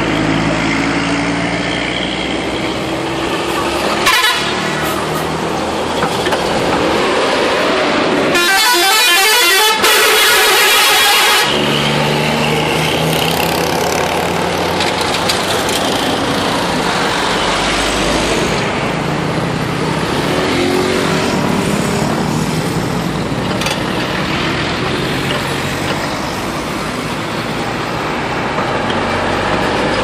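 Indonesian tour buses sounding "telolet" multi-tone musical horns, the horn notes stepping between pitches in short tunes over the running of the passing buses. About eight seconds in, a stretch of about three seconds is filled with high hiss.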